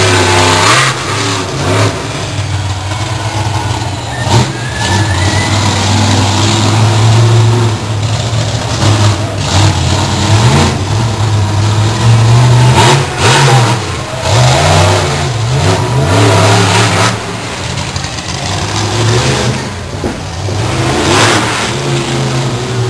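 Monster truck engine revving loudly as the truck is driven, its deep note rising and falling again and again with the throttle.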